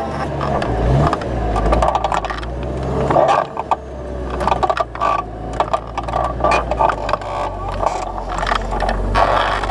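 New Holland T7060's six-cylinder turbo diesel running steadily under ploughing load, with frequent rattling and scraping clatter on top, as from the mounted plough working the soil.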